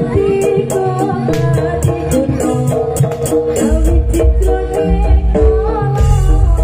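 Live East Javanese jaranan gamelan music: a wavering melodic line over regular percussive strikes, with heavy low drum and gong beats coming in about two-thirds of the way through.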